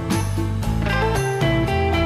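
Background music: a guitar-led track with a steady beat and bass line.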